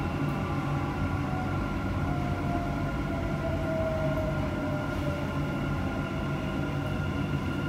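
Dubai Metro train running, heard from inside the carriage: a steady low rumble with a constant electric whine. A fainter tone slides slowly down in the middle as the train slows on approach to the next station.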